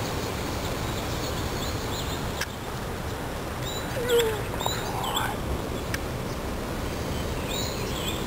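Steady outdoor background noise with birds chirping: short, high, quick-bending chirps about four to five seconds in and again near the end. A louder, short, falling call about four seconds in is the loudest sound.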